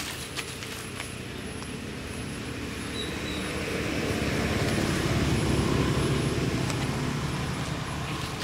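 An engine passing by, growing louder to a peak about halfway through and then fading.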